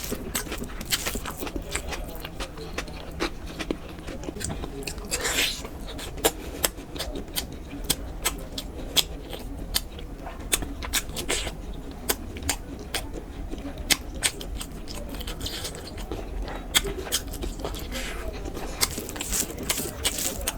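Close-miked eating sounds: chewing and mouth smacking, an irregular run of sharp wet clicks.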